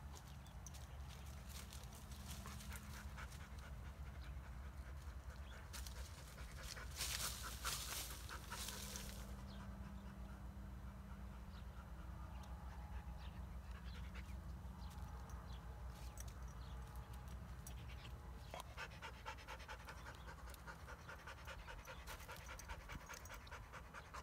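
Kars shepherd dog panting rapidly in quick runs, about seven seconds in and again from about eighteen seconds on, over a low steady rumble.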